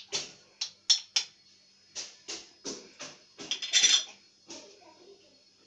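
Metal jar lids and glass jars clicking and clinking as they are handled: a string of short separate knocks, with a denser scraping rattle a little past halfway.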